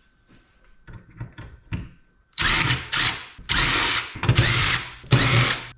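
Power drill-driver run in about four short bursts, its motor whine rising and falling with each trigger pull, as it works at the screws of the scrap casing. Light handling knocks come before the first burst, about two seconds in.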